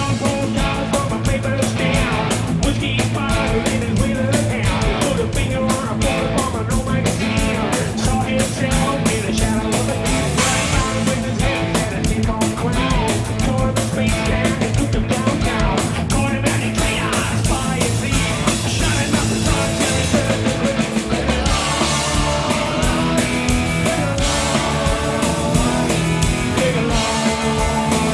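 Live rock band playing loud and steady: electric guitars and a drum kit with a lead singer singing.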